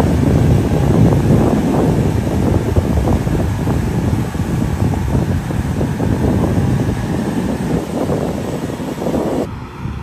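Case IH Steiger 580 four-wheel-drive tractor's diesel engine running under load as it pulls a land-levelling scraper, a loud, steady low-pitched engine sound with some wind on the microphone.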